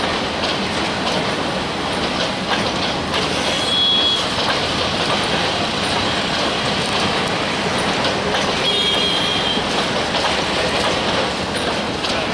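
Passenger train running on the track: a steady rumble with faint clicks of the wheels over rail joints, and two brief high-pitched wheel squeals, about three and a half seconds in and again near nine seconds.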